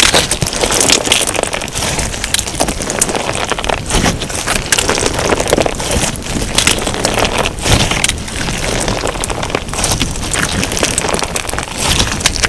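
Crunchy slime packed with sugar beads being squeezed and pressed by hand: a dense, unbroken run of crackling and popping clicks.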